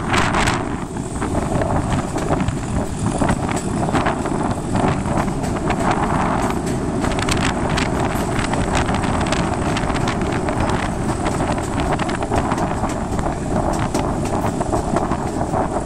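A steady low rumble with wind buffeting the microphone, crackling and gusting throughout.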